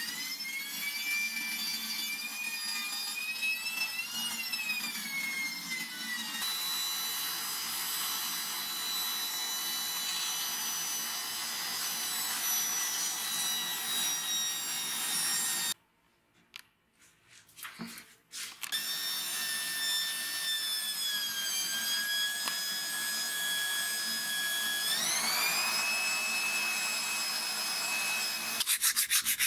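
Power-tool motor whine spinning an angle grinder armature while abrasive paper is held against its copper commutator and shaft, the pitch wandering as the paper loads it. The motor cuts out for a couple of seconds about halfway through, then starts again and climbs in speed. Near the end a rhythmic scratchy rubbing begins.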